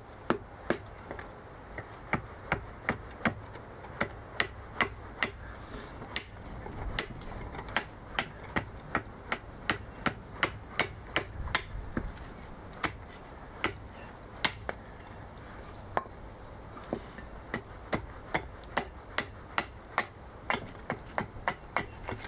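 Carving axe hewing a cherry plum spoon blank held upright on a wooden chopping stump: a long run of sharp, short chops at about two a second, each blow biting into the wood and splitting off a shaving.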